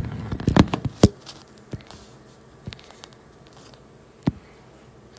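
A few sharp taps and knocks from a phone being handled and its screen tapped: three close together in the first second, a few fainter ones after, and one more about four seconds in.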